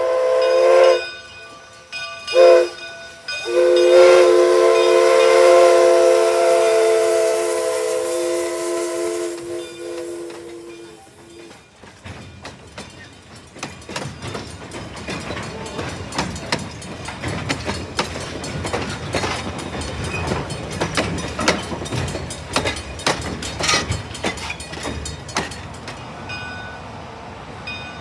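Steam whistle of McCloud River Railroad No. 25, a 1925 Baldwin 2-6-2 steam locomotive, sounding a chord: the tail of one blast, a short toot about two and a half seconds in, then a long blast of about eight seconds that fades away. Then the passenger coaches roll past with a steady rumble and wheels clicking over the rail joints, quietening near the end.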